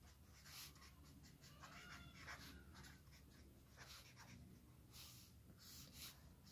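Faint scratching of a ballpoint pen writing on paper on a clipboard: a string of short pen strokes.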